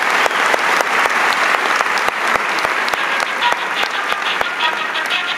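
Concert audience applauding, with a steady pulse of sharp knocks about three to four a second running through it until near the end. As the applause thins, sustained instrument notes begin to sound.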